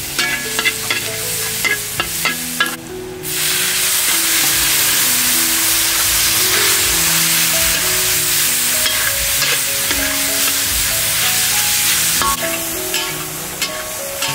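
Minced garlic sizzling in hot oil in a wok, with spatula scrapes and clicks. About three seconds in the sizzle jumps to a loud, steady hiss as sliced beef is stir-fried in the wok, then eases off near the end.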